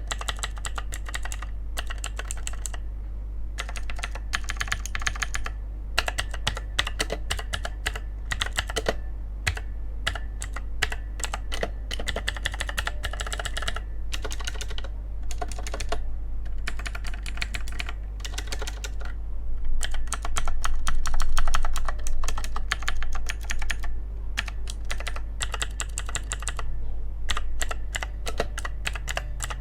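Typing on a Cosmic Byte CB-GK-16 Firefly mechanical keyboard: fast runs of clicky keystrokes in bursts with short pauses between them, loudest a little past the middle. A low steady hum sits underneath.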